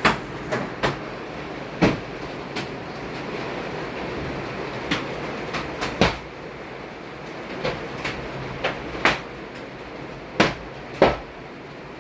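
Large hailstones, nearly golf-ball size, striking hard surfaces in a hail storm: irregular sharp knocks, about fifteen in all with the loudest two near the end, over a steady rushing hiss of the falling storm.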